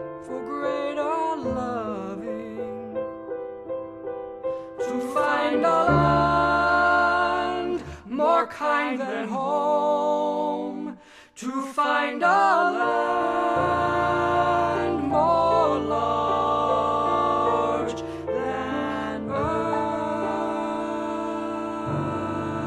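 Music: a singer holding long notes with vibrato, over instrumental accompaniment, with a few brief breaks between phrases.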